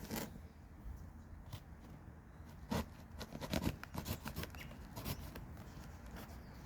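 Irregular rustles and light clicks of packaging being handled, a cluster of them a few seconds in.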